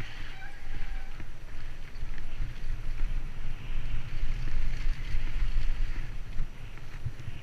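Wind rumbling over a helmet-mounted camera as a mountain bike runs fast down a dirt trail, with a steady hiss of tyres on dirt and a few small knocks from the bike.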